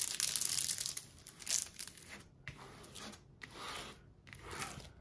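Plastic packaging crinkling and rustling as it is handled, loudest in the first second, then in short intermittent rustles.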